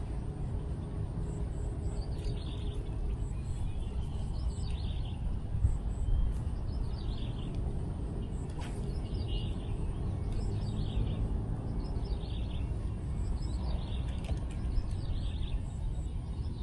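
Wind rumbling on the microphone, while a bird calls over and over: short runs of notes falling in pitch, about every one to two seconds.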